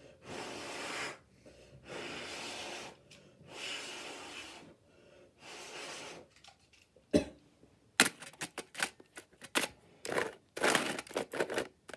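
A person blowing hard into a smoke detector four times, each breath a rushing hiss of about a second, to clear it out. About seven seconds in this gives way to a run of sharp clicks and short rustles.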